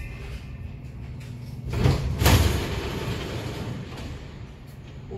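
Munich U-Bahn car standing at a platform: a steady low hum from the train, with one loud rush of noise about two seconds in that lasts under a second.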